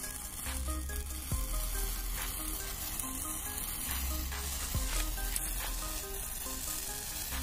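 Two handheld sparklers burning with a steady fizzing hiss, broken by a few small crackling pops.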